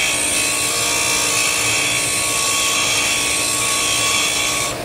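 DeWalt DW758 bench grinder's abrasive wheel grinding the side angle onto a square steel lathe tool bit: a steady, high, hissing grind over the hum of the running motor. The grinding drops away near the end as the bit comes off the wheel, leaving the motor running.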